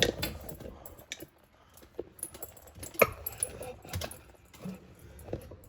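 Light metallic clinks and knocks of plumbing fittings being handled under a bathroom sink while water supply lines are hooked up to the faucet, with sharper knocks about three and four seconds in.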